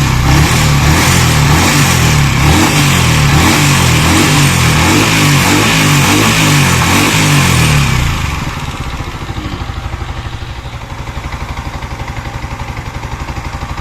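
Yamaha R15 V3's single-cylinder engine revved and held high for about eight seconds, then dropping back to an even idle, during a test run after its water pump was rebuilt.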